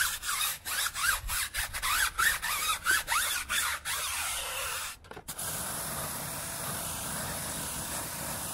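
Stiff tire brush scrubbing a tire sidewall lathered with tire and rubber cleaner, in quick back-and-forth strokes of about two to three a second. About five seconds in the scrubbing stops and a pressure washer starts spraying, a steady hiss of water rinsing the wheel.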